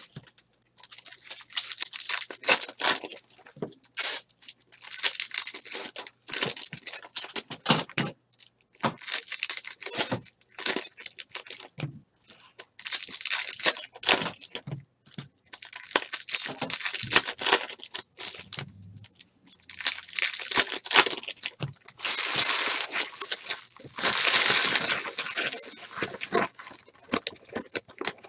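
Baseball card pack wrappers crinkling and tearing open in repeated short bursts, with a stack of cards handled in between. The longest, loudest bursts come about three-quarters of the way through.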